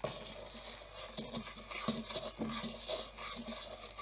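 Plastic bag of flour rustling and crinkling as it is handled and pulled open, with a low hum coming and going from about a second in.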